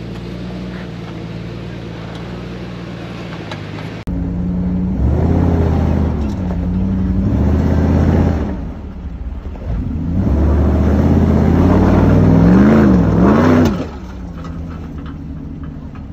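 For the first few seconds an engine idles steadily. Then an SUV engine revs hard in two long bursts, its pitch rising and falling as it works to climb a steep rock ledge, and drops back to a steady idle near the end.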